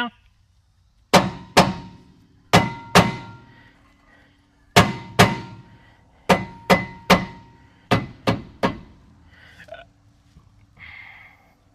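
About a dozen hammer blows on metal, in groups of two or three, each ringing briefly, as a part stuck on a car's rear hub assembly is knocked at.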